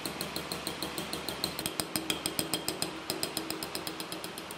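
Small hammer tapping a steel chasing punch along a line in a steel knife blank set in chaser's pitch: quick, even, ringing metal taps, about six a second.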